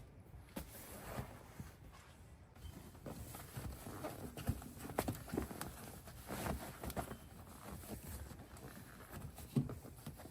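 Irregular rustling, light knocks and clicks of a faux-leather seat cover and its straps being pulled and worked onto a car seat.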